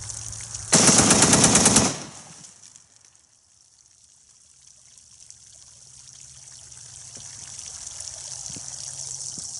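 SKS Paratrooper rifle (7.62×39) bump-fired in one rapid burst of shots lasting just over a second, starting about a second in. Afterwards, water pouring and trickling out of the bullet holes in a 55-gallon drum of water, growing slowly louder.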